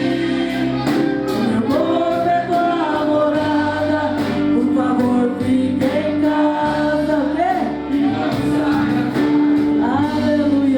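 Live gospel worship song: singing with a band accompaniment and a steady beat.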